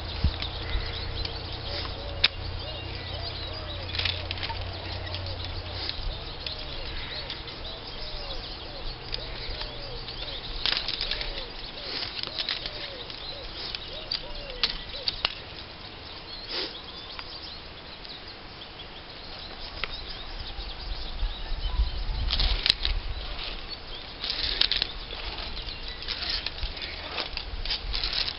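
Rope-climbing gear as a climber ascends a rope with a frog system, chest ascender and hand ascender: rustling and flapping with scattered clicks of the ascenders and hardware, and a cluster of louder clicks near the end.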